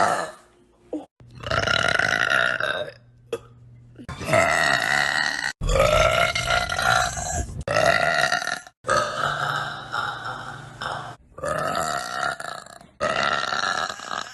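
A woman belching loudly over and over: a string of about eight long, drawn-out belches, each one to two seconds long, following one another with abrupt cuts between them.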